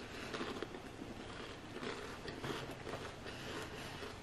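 A person chewing a mouthful of garlic bread, with soft, irregular crunching.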